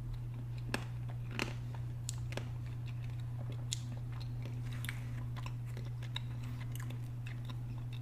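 A person chewing a mouthful of Blizzard soft-serve with truffle mix-ins close to the microphone: irregular small crunches and mouth clicks, over a steady low hum.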